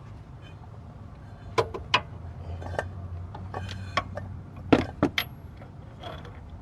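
Hand tools clinking and clacking: a steel impact socket and wrench being handled and fitted together, with about seven sharp metallic knocks.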